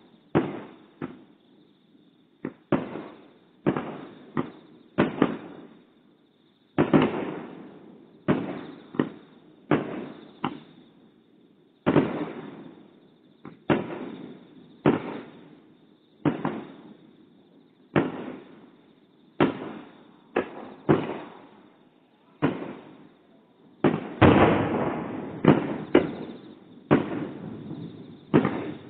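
Distant aerial fireworks shells bursting one after another, about one bang a second, each trailing off in a long rolling echo. The bangs come thicker near the end.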